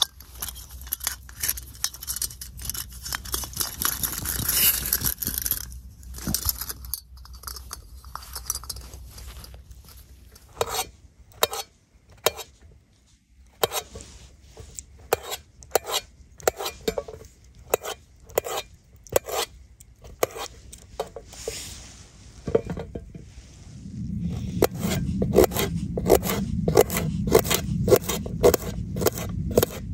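Cookware and utensil handling during outdoor cooking: a long string of sharp clicks, knocks and scrapes. A low steady rumble joins near the end.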